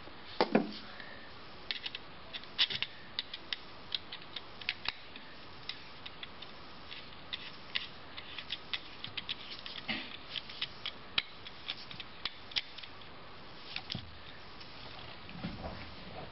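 Irregular small metallic clicks and scrapes of a screwdriver turning the terminal screws on a two-prong electrical receptacle while the wires are fastened, with the receptacle and wires being handled.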